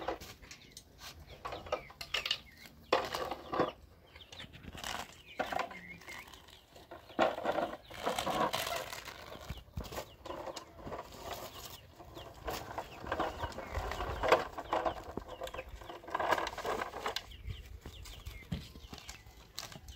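Hens clucking on and off, mixed with the dry crackle and rustle of thin flatbread sheets being handled and stacked.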